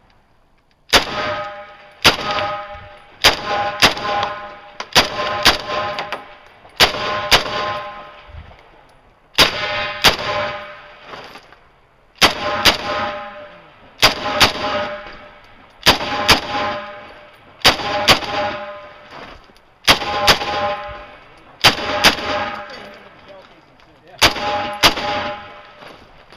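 Rifle firing a long string of shots, mostly in quick pairs every second or two, with steel targets ringing after many of the hits.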